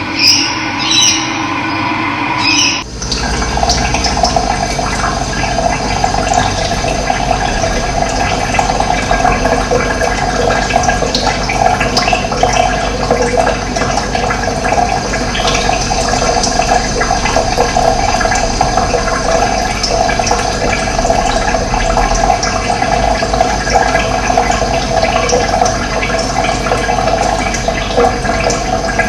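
Running water flowing steadily, a dense rushing noise. About three seconds in, a different sound cuts off abruptly and the water continues.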